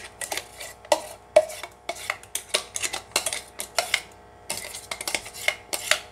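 Metal spoon scraping and clinking against the inside of a steel bowl as thick mango puree is scraped out into another steel bowl: irregular clinks and scrapes, with a short lull about four seconds in.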